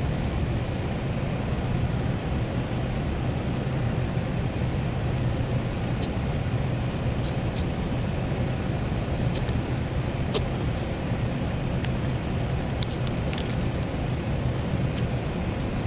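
A steady low hum with background noise, with a scatter of faint light clicks from about six seconds in as small metal parts are handled on the bench.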